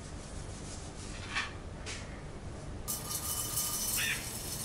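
Faint rustle of roasted peanuts being rubbed by hand to loosen their skins. About three seconds in, peeled peanuts are poured into a steel mixer-grinder jar, giving a soft rattling patter.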